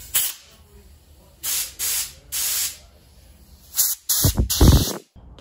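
Compressed-air blow gun hissing in several short blasts, the last about a second long and the loudest, blowing the water out of a freshly washed rubber steering-rack dust boot.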